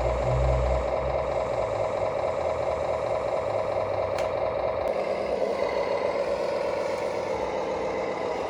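Steady whine from a radio-controlled construction model's electric motor and gears, with a low rumble fading after the first second and the pitch shifting up partway through.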